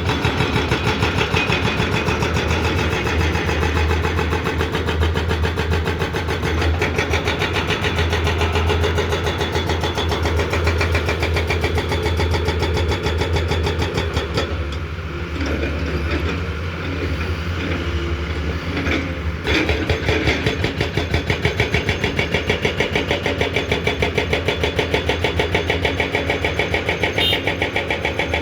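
Komatsu PC210 excavator's diesel engine running steadily under working load, easing off for about five seconds midway and then picking back up.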